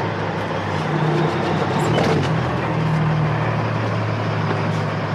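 Heavy truck's diesel engine running steadily at low revs as the truck is manoeuvred into position.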